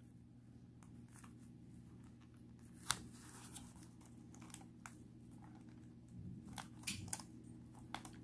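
Faint crinkling and scattered clicks of a canvas and its parchment-paper cover being handled while the excess glue edge is picked at, with one sharper click about three seconds in, over a low steady hum.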